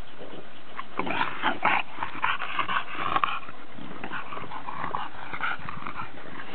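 A dog making a run of short, breathy sounds about one to three seconds in, then softer ones.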